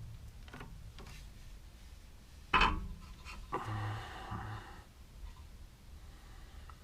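Front brake caliper piston of a Toyota Avensis being pressed back into its bore: a sharp metallic clack about two and a half seconds in, then about a second of rasping, straining noise as it is forced home.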